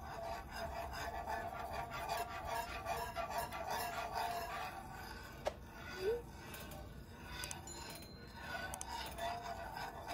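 Wire whisk stirring cream and melting cheese in a frying pan, a continuous scraping and rubbing against the pan as the Alfredo sauce is whisked together, with music playing underneath and a sharp click about five and a half seconds in.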